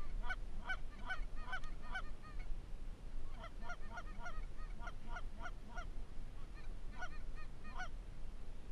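Rapid Canada goose honks and clucks, about three to four a second, in three runs with short gaps between them.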